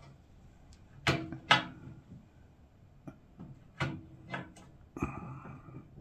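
Sharp metallic clicks and scrapes of pliers gripping and twisting an easy-out screw extractor set in a brass steering-lock cylinder, working the lock loose from the steering head. About five separate clicks, the two loudest a little over a second in.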